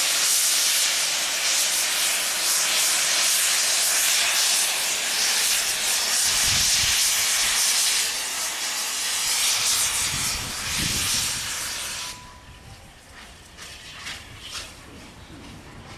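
Steam hissing loudly and steadily from Bulleid Battle of Britain class Light Pacific 34067 Tangmere, with low rumbles twice in the middle; the hiss cuts off abruptly about twelve seconds in, leaving quieter railway sounds with a few faint clicks.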